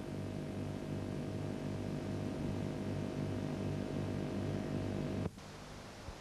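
Lathe running with a steady hum and a low throb pulsing about two and a half times a second. About five seconds in the sound cuts off suddenly with a click, leaving a fainter hum.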